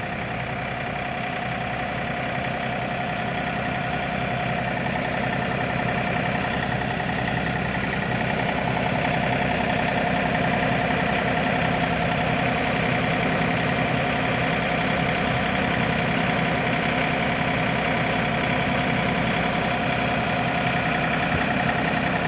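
Tractor engine running steadily, growing gradually louder over the first several seconds and then holding even.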